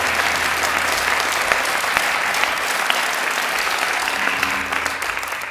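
Audience applauding, a dense patter of claps that starts to thin out near the end.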